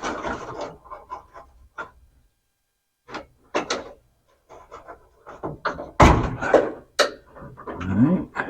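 Knocks, clatters and rustling of hand work with parts and tools, with strained breathing or grunts; a heavy thump about six seconds in is the loudest sound, followed by another sharp knock, and a short rising grunt comes near the end.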